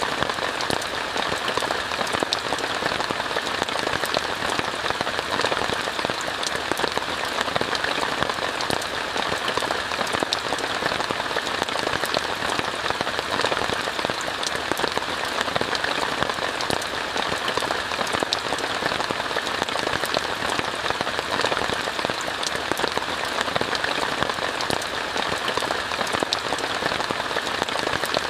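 Steady rain falling on a tent, a dense even hiss with many sharp individual drop hits.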